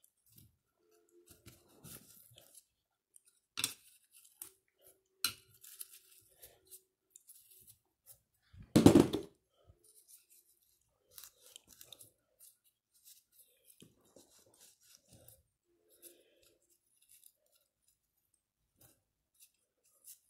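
Scattered small clicks and paper rustles of paper towel being torn and handled while it is packed into a vacuum motor's bearing, with one louder clunk about nine seconds in.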